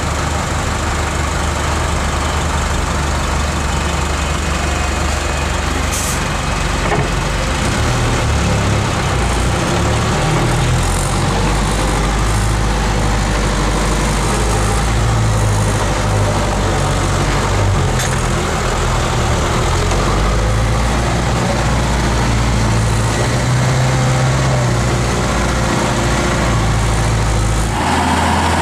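Older Unimog's diesel engine running steadily, heard from inside the cab as it drives slowly along a rough dirt track; the engine note changes about eight seconds in. Right at the end the sound cuts to another truck engine heard from outside.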